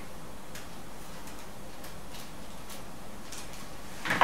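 Steady background hiss with a few faint, irregular ticks. Right at the end a sudden, louder clatter of handling begins.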